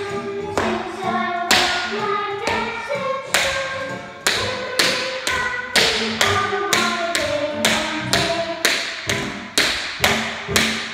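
Tap shoes striking a wooden floor in a tap dance routine, sharp taps about two a second that come faster in the second half, over a song playing.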